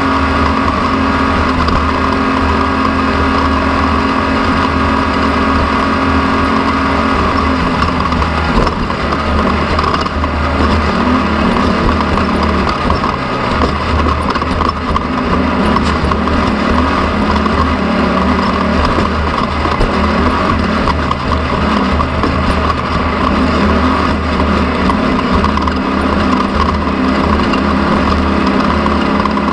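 An engine running steadily under work. About eight seconds in its pitch drops and wavers, then it settles again and runs on.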